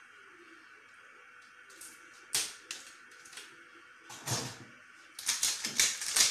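Plastic chilli sauce squeeze bottle being shaken and squeezed: a sharp clack about two seconds in, another a couple of seconds later, then a quick run of clicks and sputters near the end.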